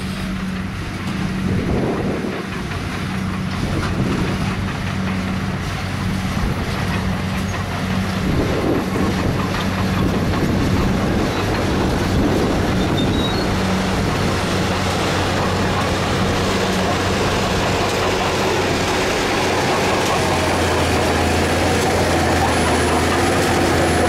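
Shacman dump truck's diesel engine running steadily with the bed tipped up, while its load of dirt slides out in a rushing rumble that builds from about eight seconds in.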